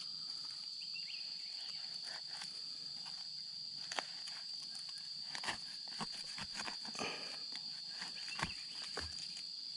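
Steady high-pitched drone of insects, with scattered short knocks and clicks a few seconds apart.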